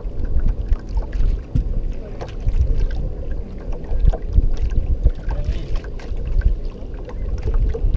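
Wind buffeting the microphone and river chop lapping and slapping against a small aluminium fishing boat's hull: a heavy, uneven low rumble with scattered sharp knocks.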